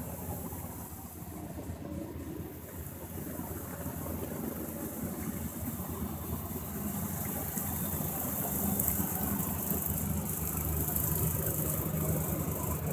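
Jeep engine running steadily, growing gradually louder over the stretch.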